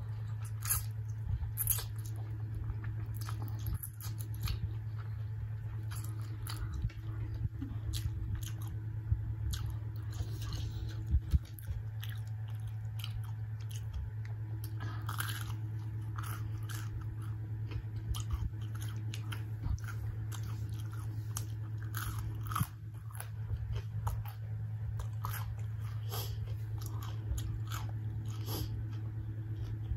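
Close-up eating sounds: slurping spicy instant noodles and chewing and crunching bites of fried chicken, with scattered sharp clicks. A steady low hum runs underneath.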